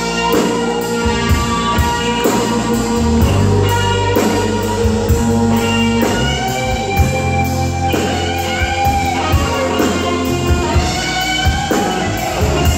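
Live rock band playing, an electric guitar taking a lead solo with sustained, bending notes over bass guitar and drum kit.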